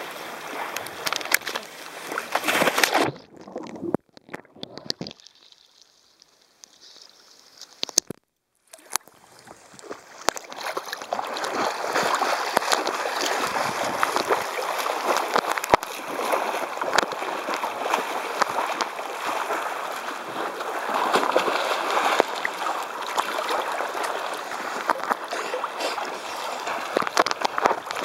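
Sea water sloshing and splashing around a camera held at the surface by a swimmer, with many small splashes and slaps. The sound goes quiet and dull for several seconds after the first few seconds, then the steady sloshing returns.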